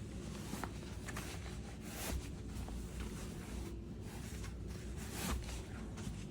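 Faint footsteps on stairs with light rustling: a scatter of quiet, irregular clicks over a low steady hum.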